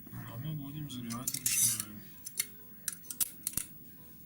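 Metal staples being pried out of an upholstered chair seat: a scratchy scrape about a second and a half in, then a run of sharp single metallic clicks.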